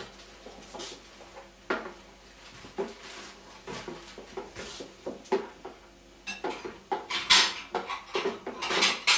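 Kitchenware being handled: a large plastic container and dishes knocking and clinking. A few scattered knocks at first, then a busier run of clatter over the last few seconds.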